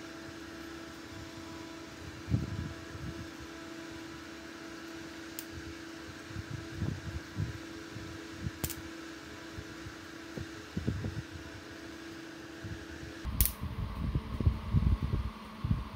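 Small mains-powered axial cooling fan running with a steady hum, with light knocks and clicks from wires and pliers being handled. About 13 seconds in there is a sharp click, the hum's tone changes, and the handling knocks grow louder.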